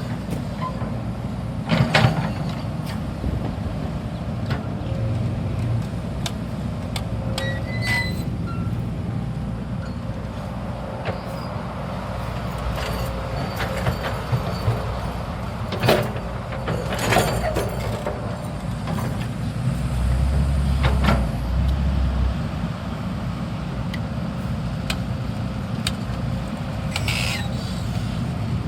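Heavy machine's engine running steadily, with several sharp metallic clanks and knocks. The engine note grows louder for a couple of seconds about two-thirds through.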